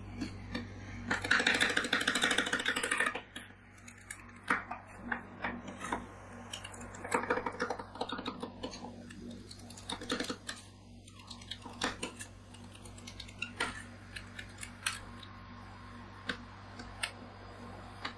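Two metal spatulas chopping and scraping ice cream base on a steel cold plate: a fast run of clattering chops near the start and another in the middle, with scattered taps and scrapes between. A steady low hum runs underneath.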